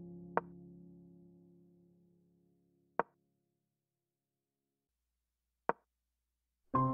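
Three short wooden clicks of chess pieces being moved on a computer chess board, about two and a half seconds apart. Soft background music fades out under the first click and starts again near the end.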